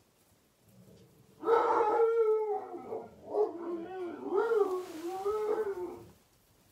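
A long howl that starts about a second and a half in, its pitch wavering up and down for about four and a half seconds before it fades.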